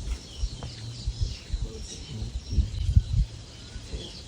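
Birds chirping in many short, quick calls, over low irregular thumps and rumble, the loudest thumps about three seconds in.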